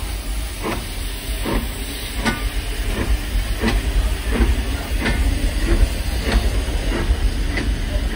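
Steam locomotive (a 4-4-0) pulling away, its exhaust chuffing at an even pace of about three beats every two seconds over a steady hiss of steam and a low rumble.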